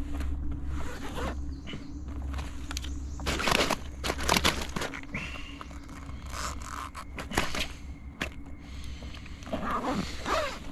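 Handling noise as a caught crappie is stowed in a zippered soft fish bag on a kayak deck: scraping, rustling and the zipper being pulled. The noise is loudest three to four seconds in and comes again near the end, over a steady low hum.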